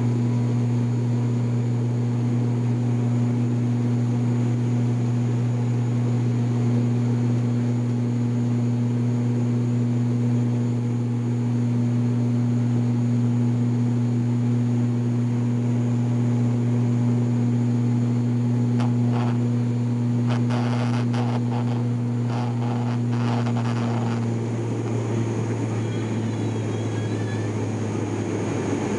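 Cabin drone of an ATR 72-600's turboprop engines and propellers at climb power just after takeoff: a steady, loud, low hum. A patch of light clicking comes about two-thirds of the way in, and the hum's tone shifts slightly soon after.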